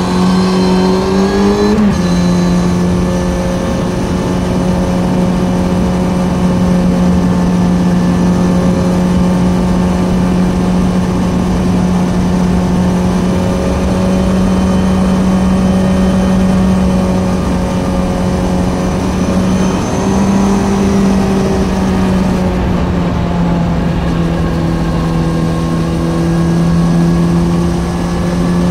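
Kawasaki Z900 inline-four engine through an Ixil SX1 full exhaust while riding: the revs climb for about two seconds, drop suddenly with a gear change, then hold steady at cruising revs. The revs rise slightly about twenty seconds in and then ease off, over a steady rush of wind and road noise.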